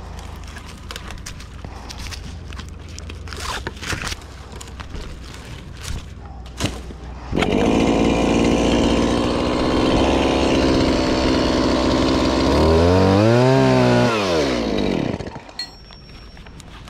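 Two-stroke chainsaw idling, then throttled up hard about seven seconds in and held at high revs, cutting a tree limb. Its pitch climbs and falls back before the throttle is released about fifteen seconds in.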